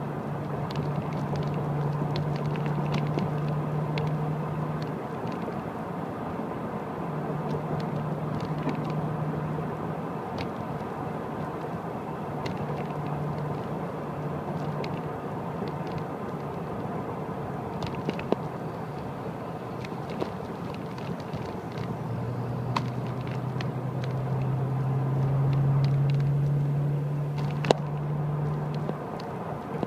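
Car engine and road noise heard from inside the cabin while driving: a steady engine hum that swells and falls and rises in pitch near the end, with scattered light clicks and knocks, the sharpest near the end.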